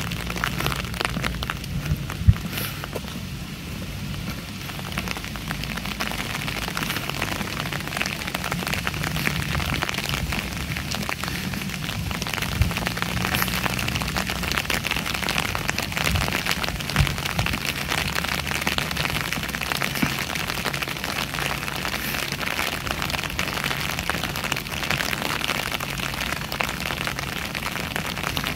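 Steady rain falling, a dense patter of small drop ticks with a few sharper single drops among them. A low steady rumble runs underneath.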